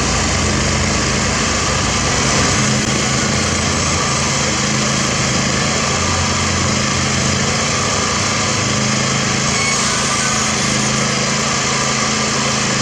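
Diesel engine of heavy road-construction machinery running steadily under load.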